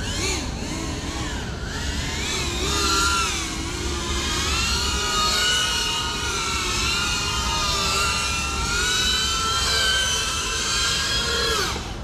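GEPRC CineLog 35 cinewhoop quadcopter's motors and ducted propellers whining in flight, the pitch rising and falling with the pilot's stick inputs. The pitch holds steadier through the middle and drops near the end.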